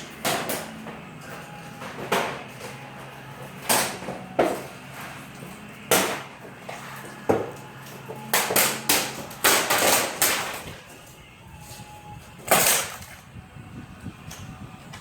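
A dozen or so irregular sharp knocks and clatters, some with a short ringing tail, bunching into a quick run about eight to ten seconds in. A low steady hum underneath fades out about halfway.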